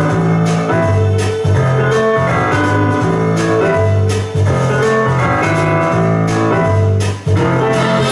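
Instrumental background music with a steady beat and a sustained bass line.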